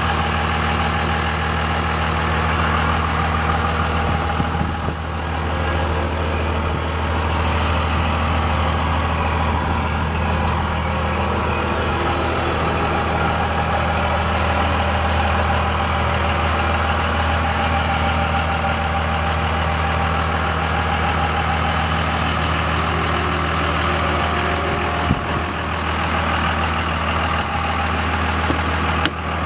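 2001 Dodge Ram 2500 pickup's engine idling steadily, with a couple of brief clicks late on.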